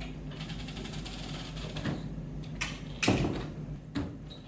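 Wooden restroom door swinging shut, with a few light knocks, a heavier thud about three seconds in and a click about a second later.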